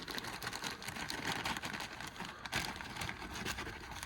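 Plastic packaging rustling and crinkling as it is handled, with many small clicks.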